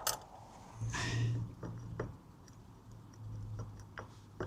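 Scattered light clicks and taps of metal parts being handled as a motorcycle rear sprocket is worked off its hub, with a brief rustle about a second in and a faint low hum underneath.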